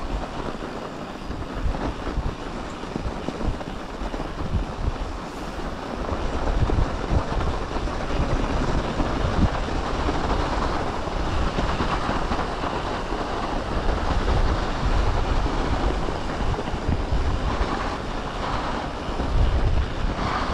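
Continuous rumble of a mountain bike rolling over a snow- and ice-covered trail, with wind buffeting the microphone; it grows louder about six seconds in.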